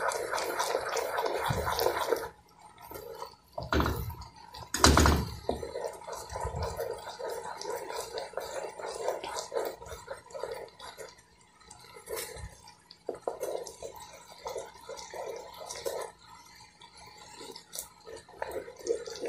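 Thick red sugar syrup boiling in a pot, bubbling and popping irregularly while a wooden spoon stirs it, with a few knocks of the spoon against the pot, the loudest about five seconds in. The syrup is boiling down and is almost ready for candy-coating.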